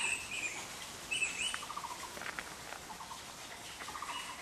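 Background birds calling: short chirps that rise and fall, mixed with quick rattling trills, repeating every second or so. A couple of faint clicks come about one and two seconds in.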